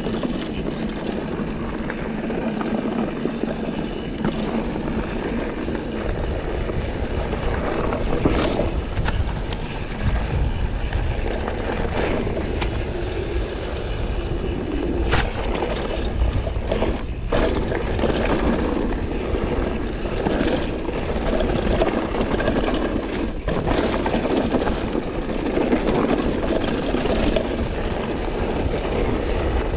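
Mountain bike riding downhill on a dirt trail: steady wind rush over the helmet-mounted microphone and tyre rumble, with a few sharp clatters from the bike over rough ground.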